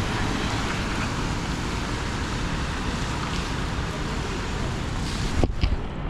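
Steady hiss of heavy rain, which cuts out suddenly near the end, followed by a few sharp clicks.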